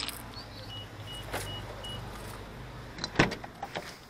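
Four short, evenly spaced high beeps, then a sharp click of a car door latch as the door is pulled open about three seconds in, with a few smaller clicks after it. A low hum runs under the beeps.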